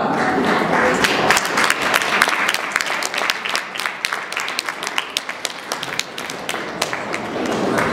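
Audience applauding, a dense patter of hand claps that begins about a second in and thins out toward the end.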